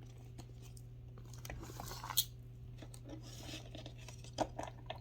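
Faint handling noises: soft rustling and a few small, sharp clicks, the clearest about two seconds in and again near the end.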